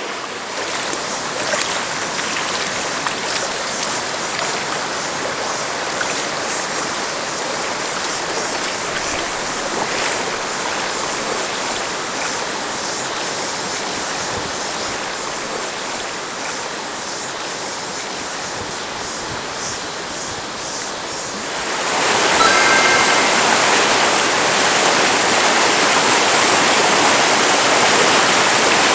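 Steady rush of a jungle stream's flowing water, which becomes clearly louder about 22 seconds in.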